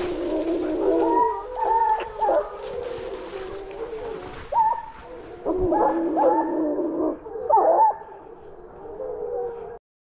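Pack of hunting hounds baying on wild boar, several voices overlapping in irregular bouts; the sound cuts off suddenly near the end.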